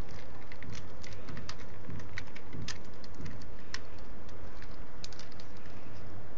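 Irregular light clicks and ticks over a steady low rumble: handling noise as the potted plant is held close to the phone.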